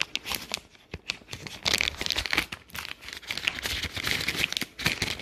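Packaging of a diamond-painting tool kit crinkling as it is handled and opened, in irregular crackles, busiest from about two seconds in.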